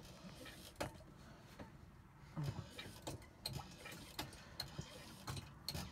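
Faint, irregular small clicks and soft knocks from hands working the brass oil-drain tap and a metal oil can on a narrowboat's diesel engine.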